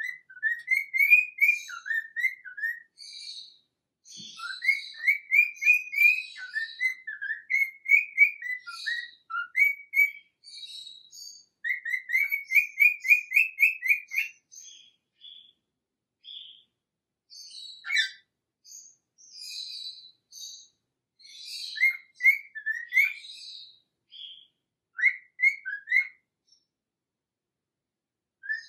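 Pet parrot chirping and whistling in bouts of short, quick notes with pauses between them, including a fast run of repeated chirps about halfway through.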